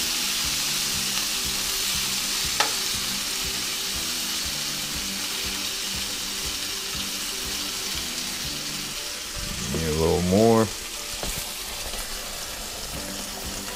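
Chicken pieces frying in melted butter in a nonstick frying pan: a steady sizzle that eases gradually, with the pieces being moved around in the pan. A short rising pitched sound stands out about ten seconds in.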